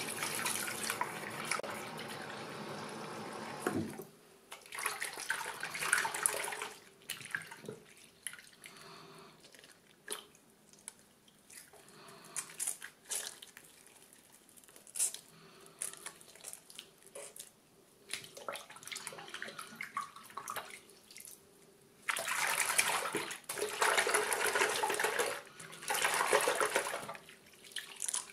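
Bathroom tap running into a sink, shut off abruptly about four seconds in. Then wet squishing and splashing as slime is kneaded and rinsed in the hands over the sink, with louder stretches of water noise near the end.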